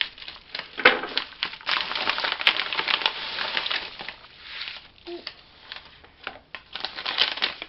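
Packaging crinkling and rustling as a package is opened by hand, with a dense stretch of crackling about a second in, then scattered rustles and clicks.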